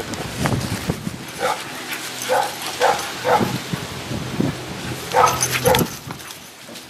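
A dog barking in short yips during play with another dog: about six barks, four in the middle and two close together near the end.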